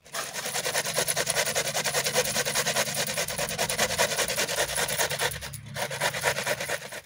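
Carrot being grated by hand on a stainless-steel box grater: quick, even rasping strokes, with a short break about five and a half seconds in.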